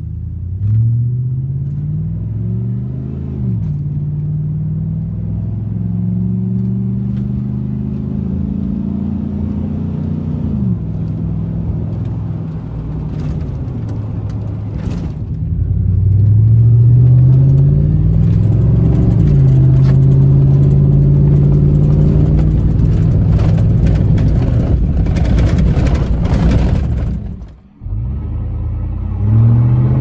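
V8 pickup engine heard inside the cab through a Flowmaster Super 10 chambered muffler, accelerating. Its pitch climbs and then drops back at each upshift. About halfway through, the same exhaust runs without catalytic converters and sounds louder; near the end it cuts off briefly, then picks up accelerating again.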